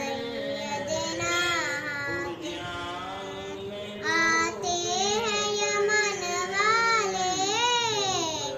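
A young girl singing a manqabat, an Urdu devotional praise poem, solo with no instruments, her voice drawn out in long held notes that bend and waver in pitch.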